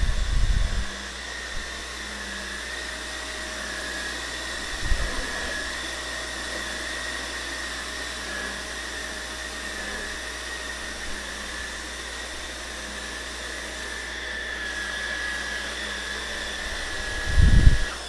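Hoover Air Pro bagless canister vacuum running steadily, picked up by a camera microphone: an even rush of air with a high whine that wavers slightly in pitch. A few low thumps come near the start, about five seconds in and just before the end.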